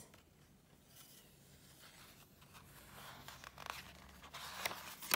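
A picture-book page being turned by hand: faint paper rustling that picks up after a couple of seconds, with a sharp snap near the end.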